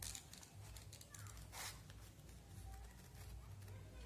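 Scissors snipping through folded paper: a few faint snips with paper rustle, the clearest about a second and a half in, over a low steady hum.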